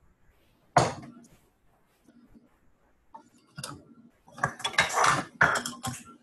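Dishes and measuring cups clattering as sugar is measured into mixing bowls, heard over a video call: one sharp knock about a second in, then a run of scraping and rustling near the end.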